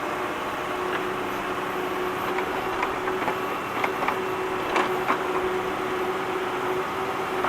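Digging tractor's engine running steadily under load, with a run of sharp clanks and knocks from the digging gear in the middle, the loudest about five seconds in.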